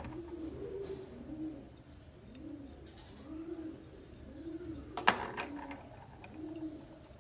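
A dove cooing over and over, each coo a short low note that rises and falls. About five seconds in there is one sharp click, followed by a few lighter ones, as the steel pistol parts are handled.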